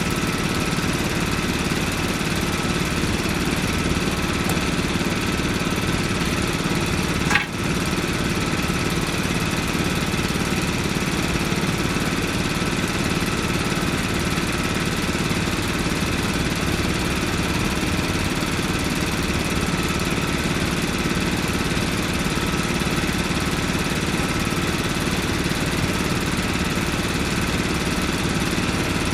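An engine running steadily at idle, with one brief click about seven seconds in.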